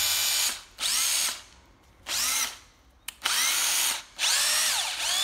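Makita 9.6 V cordless drill run in about five short trigger pulls, the motor whining up in pitch each time and dying away quickly when released: the variable-speed trigger and electric brake working.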